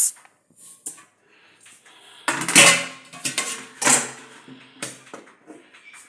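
Clatter of a metal cooking pot being handled and set on the stove: a series of clinks and knocks, louder in the second half.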